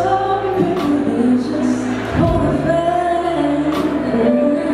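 A woman singing a slow pop song into a microphone with a live band accompanying her; her long held notes glide between pitches over steady low accompaniment.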